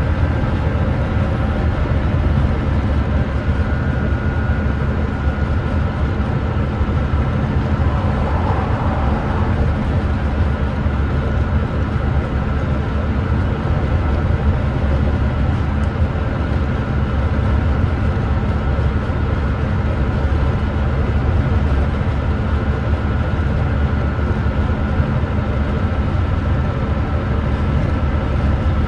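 Volvo D9B 9.3-litre six-cylinder diesel of a Volvo B9TL double-decker bus running steadily at cruising speed, heard from on board over steady road noise, with a faint high whine above it. The uploader describes the engine as misfiring.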